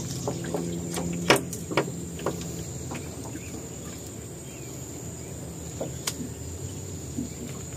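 A steady high insect drone from the riverbank, with a low hum beneath it. A few sharp clicks and knocks from handling a catch and fishing tackle in a small boat stand out, the loudest about a second in.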